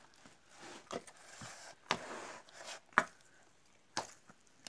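Hands kneading a fairly stiff yeast dough in a plastic basin: a sharp slap or knock about once a second, four in all, the loudest near three seconds in, with soft squishing and rubbing between them.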